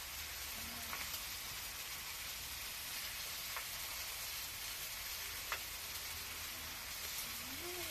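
Food sizzling steadily in a frying pan on a portable gas stove as it is stirred, with a few faint clicks.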